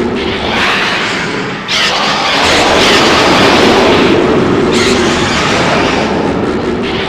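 Grand King Ghidorah monster sound effect: a loud, noisy, explosion-like rush with fresh blasts starting about two seconds and five seconds in.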